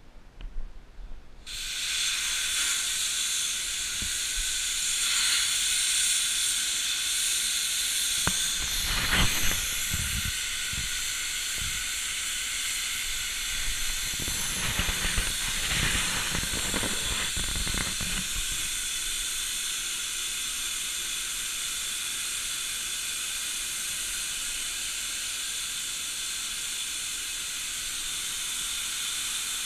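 Hypertherm Powermax 125 plasma torch on a Zinser CNC gantry cutter starting suddenly about a second and a half in, then hissing steadily as it cuts 5 mm steel plate. Between about 8 and 18 seconds, low knocks and thumps are mixed in.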